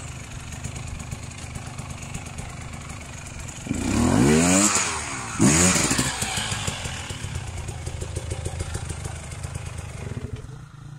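Dirt bike engine idling steadily, blipped up to high revs twice, about four and five and a half seconds in, each time dropping back to idle.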